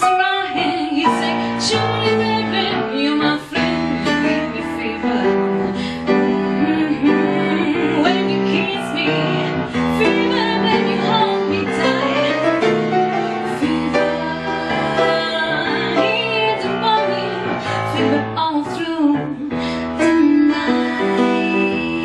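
A woman singing into a microphone, accompanied on a grand piano.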